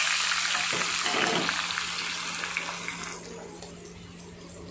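French fries deep-frying in hot oil in a kadai, just after going in: a loud, dense sizzle that eases to a quieter, steady sizzle about three seconds in. A faint steady hum runs underneath.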